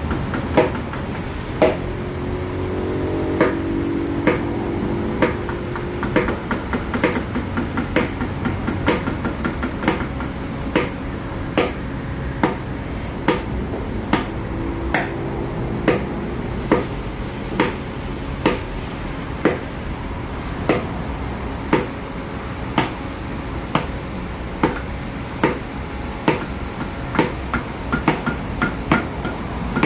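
Wooden mallet striking a carving chisel into wood, regular taps about one to two a second, over a steady background hum.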